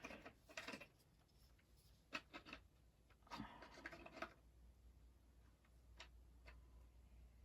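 Faint clicks and rubbing of 3D-printed plastic model parts being handled and pushed together: a few scattered taps, a longer scrape a few seconds in, and two light ticks near the end.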